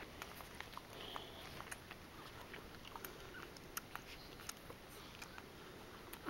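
Faint, scattered wet clicks and smacks of a cocker spaniel mother licking and nosing her newborn puppy.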